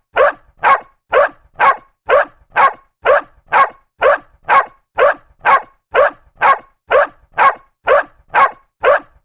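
A dog barking in a steady, evenly spaced series of short barks, about two a second.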